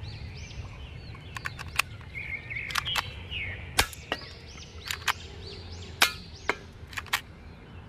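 Toy Mauser C96-style broomhandle pistol, loaded and then fired several times. Each shot is a sharp snap, the loudest about four seconds in and a quicker run of them near the end.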